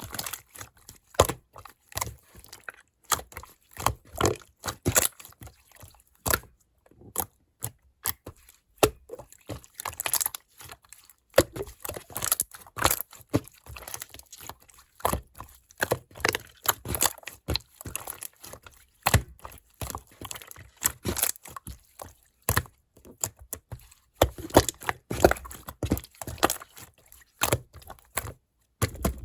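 Clear slime being squished and pressed by hand, giving a dense, irregular run of clicks and pops in quick clusters.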